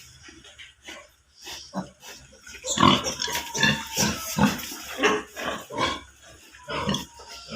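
Yorkshire × Hampshire cross-bred piglets grunting and squealing, a string of short separate calls that grows louder and busier about two and a half seconds in.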